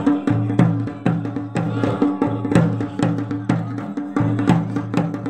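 Garhwali dhol drum beaten in a steady rhythm of sharp strikes over a deep, ringing low tone: traditional drumming for a devta dance.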